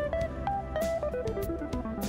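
Background music: a guitar playing a stepping melody over a drum beat.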